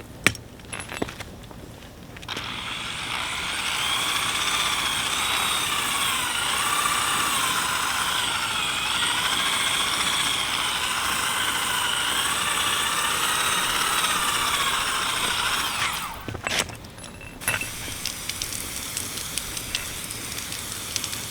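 Drill spinning a sanding pad against a plastic headlight lens during restoration. It starts about two seconds in and runs for about fourteen seconds, its whine wavering up and down as the pressure changes, then stops. Light clicks and handling noises come before and after.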